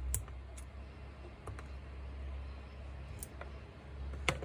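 About half a dozen light, irregular clicks of a thin metal pick against the gear housing of a Makita GA9010C angle grinder, as the sticky matter plugging the spindle-lock hole is picked out. A low steady hum runs underneath.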